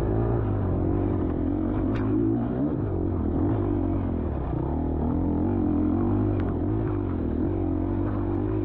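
Dirt bike engine running under changing throttle, its pitch rising and falling over and over, with two sharp clacks about two and six seconds in.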